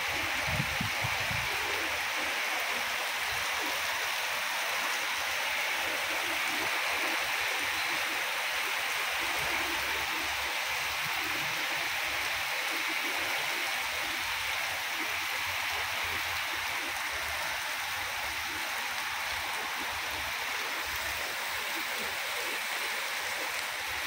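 Heavy rain pouring steadily onto a street, trees and rooftops: a dense, even hiss of falling water.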